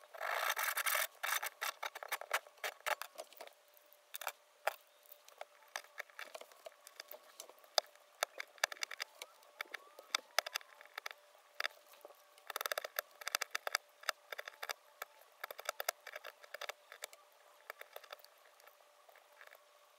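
A hand saw cutting through a thin square wooden stick for about a second, then a utility knife whittling the wood: many small cuts, clicks and scrapes as chips come away.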